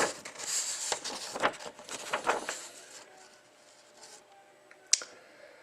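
Irregular rustling and rubbing handling noises for about three seconds, then quieter, with a single sharp click about five seconds in.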